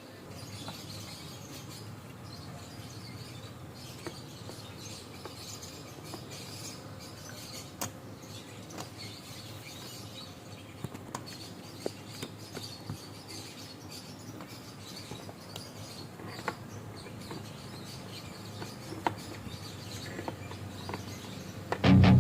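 Faint, irregular small clicks and light taps over a steady low hiss. Loud music with strummed guitar cuts in at the very end.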